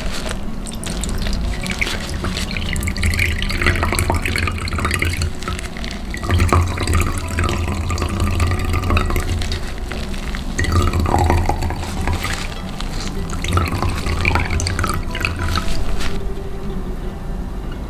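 Carrot juice squeezed out of grated carrot through a cloth filter bag and poured into a glass measuring jug, the liquid splashing and trickling in uneven swells.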